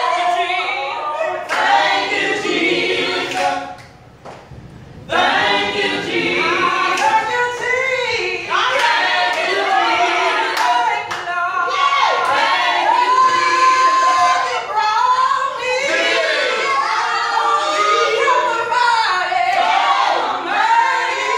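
A small mixed group of men's and women's voices singing a praise song a cappella in harmony, with no instruments. The voices break off briefly about four seconds in, then come back in together.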